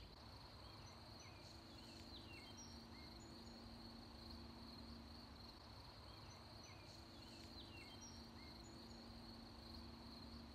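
Faint outdoor ambience: a steady high trill of crickets, with two short runs of bird chirps, one early and one in the second half, over a low rumble of wind on the microphone.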